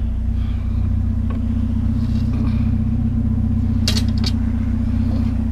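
Truck engine running steadily with a low hum, with a couple of sharp clicks about four seconds in.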